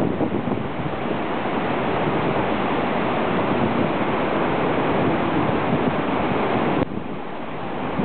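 Steady rush of a river in typhoon flood, its swollen, silt-brown water running high and fast, with wind buffeting the microphone. The rush drops a little about seven seconds in.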